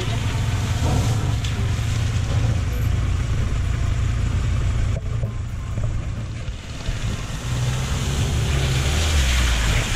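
Off-road vehicle's engine running with a steady low rumble. It eases off just past the middle and builds again near the end.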